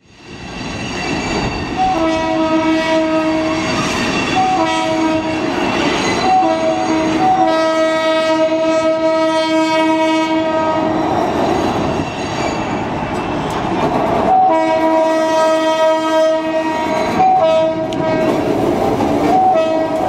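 EMD NW2 switcher locomotive sounding its chime air horn in a series of long and short blasts, the grade-crossing signal, repeated twice, over its diesel engine running and the rumble of the train. The sound fades in at the start.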